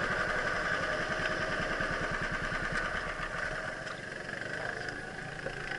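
Go-kart engine heard from the kart itself, running at low revs as the kart slows to a stop in the pits, its sound gradually dropping in level.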